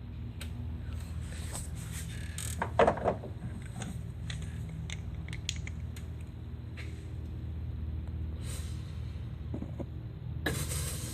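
A steady low machine hum runs under scattered clicks and knocks of handling, with a louder pair of knocks about three seconds in and a rustling burst near the end.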